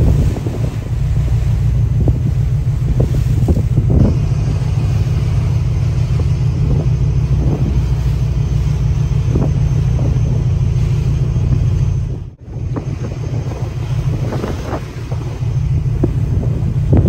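Wind buffeting the microphone over a steady low rumble from a small boat under way on choppy sea, with occasional slaps of water. The sound drops out briefly about twelve seconds in.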